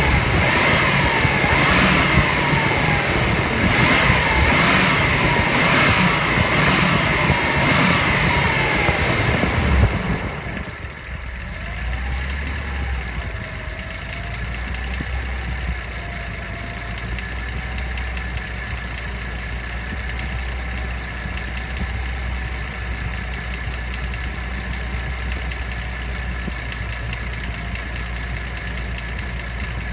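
Nissan L20ET turbocharged inline-six engine running, with a steady high whine and a falling-pitch pulse repeating about once a second. About ten seconds in it drops suddenly to a quieter, steady low idle hum. The owner questions the sound as an abnormal engine noise.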